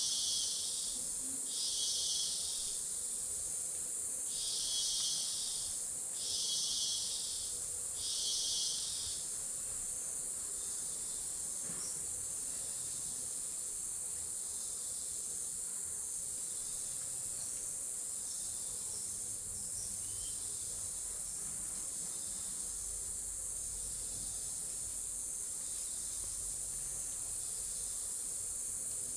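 Lowland rainforest insect chorus: a steady high-pitched drone throughout. Over it, another insect calls in pulses of about a second each, one every second and a half or so, for the first nine seconds, then continues only faintly.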